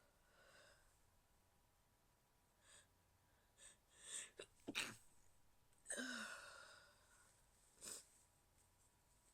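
A woman stifling sneezes: a few short catches of breath build up to a sharp stifled sneeze about five seconds in. A longer, breathy one follows with a brief voiced squeak at its start, then a short one near the end.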